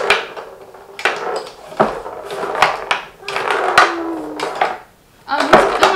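Tabletop mini foosball game in play: the ball and plastic players clacking against each other and the wooden box in sharp, irregular knocks.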